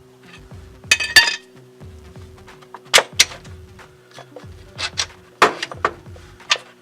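Sharp, irregular metallic clanks and knocks of hand tools on metal, the loudest about a second in and again near three and five and a half seconds, over quiet background music.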